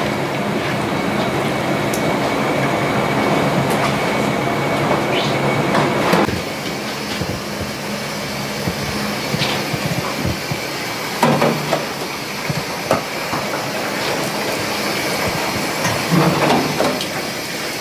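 Kitchen work noise: a steady rushing sound with scattered light clicks and knocks. It drops somewhat in level about six seconds in.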